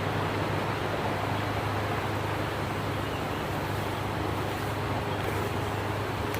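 A steady low hum under an even hiss, unchanging throughout, with no distinct knocks or clicks.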